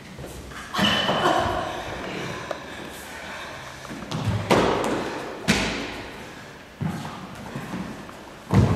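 Stage-combat fight sounds: about five sharp thuds and slaps from feet landing on the studio floor and from knaps, the faked contact sounds of the blows, spread over several seconds, the loudest near the end, ringing briefly in a large bare room.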